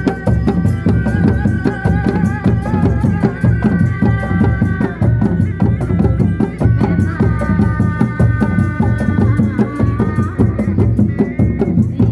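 Kuda lumping ensemble music: fast, busy drumming under a high melody of long held notes that bend slightly, with short breaks between phrases.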